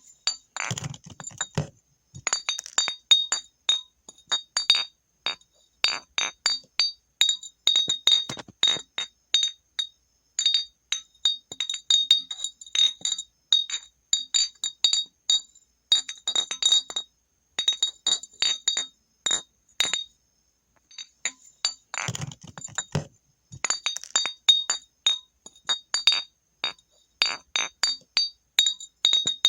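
Glass bottle struck again and again, clinking several times a second, each strike ringing at the same high pitches. It pauses briefly a little after twenty seconds. Heavier, duller knocks come near the start and again around twenty-two seconds.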